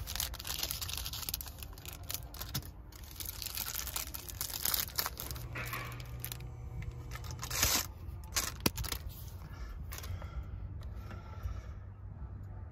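Thin plastic bag crinkling and tearing as a handheld radio antenna is worked out of it, in dense irregular rustles with a sharp loud crackle near the middle, thinning out to faint handling noise for the last few seconds.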